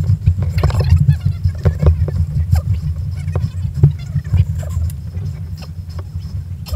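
KTM dirt bike engine running low and slow as it picks its way over rough woodland trail, with scattered knocks and rattles from the bike and brush.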